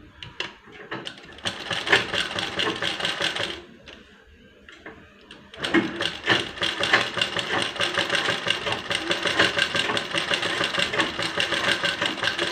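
Limbad sewing machine stitching through fabric: a short run, a pause of about two seconds while the cloth is turned, then a steady fast run from about six seconds in, with a rapid, even needle clatter.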